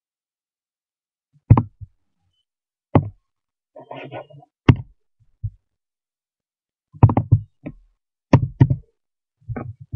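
Dull knocks from a computer mouse and keyboard being clicked and pressed: a few single ones, then quicker clusters in the second half.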